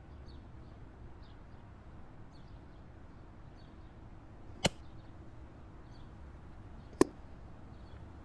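Air rifle shot at a chipmunk, heard as two sharp cracks a little over two seconds apart, most likely the shot and the slug's strike. Faint short high chirps come and go behind them.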